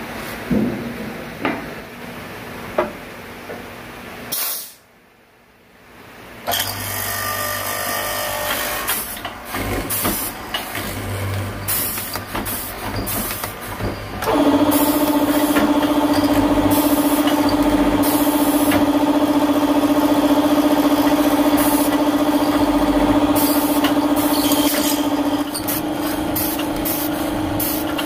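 A few light knocks of hardwood pieces on a metal saw table come first. After a short break, a pneumatically clamped woodworking machine cuts, with repeated hisses of air from its clamp cylinder. From about halfway, a loud steady motor hum takes over while a mortising bit bores into a hardwood block, the tone shifting slightly near the end.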